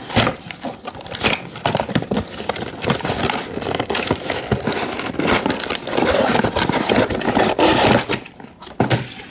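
Toy packaging being worked open by hand: a dense, irregular run of crinkling, scraping and crackling, with a short lull near the end.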